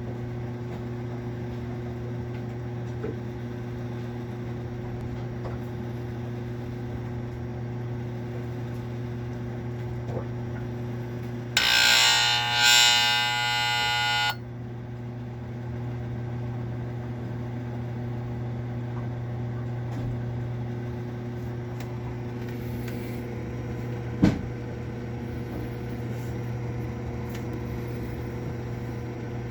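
Marine Air Systems Cabin Mate marine air conditioner running with a steady hum. About twelve seconds in, a loud harsh buzz lasts about three seconds as the compressor struggles to start, then cuts off suddenly. A single sharp click follows later.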